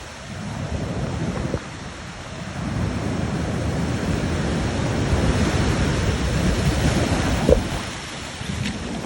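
Ocean surf pounding on rocks and the water draining back out: a surge builds about two and a half seconds in, holds with one brief sharp hit, then eases near the end.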